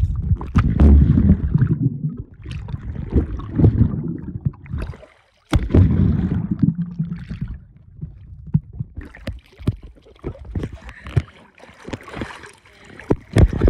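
Muffled underwater sound of a camera submerged in a swimming pool: low rumbling water movement with many knocks and clicks against the camera. It cuts out briefly about five seconds in, and the later part is thinner, with lighter crackling clicks as the camera nears the surface.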